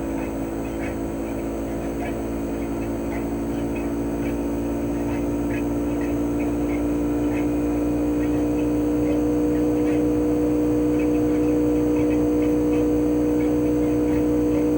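CHOFU AE-2844PX mini-split outdoor unit running in cooling mode: the inverter-driven GMCC single-rotary compressor hums steadily under the whoosh of the propeller fan, with faint light ticks. It grows slightly louder over the course of the sound.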